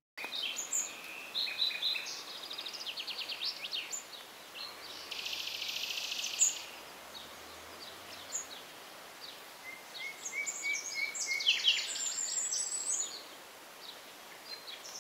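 Several small birds singing and calling, a mix of short chirps and quick trills, with a dense buzzy trill about five seconds in, over a faint steady hiss.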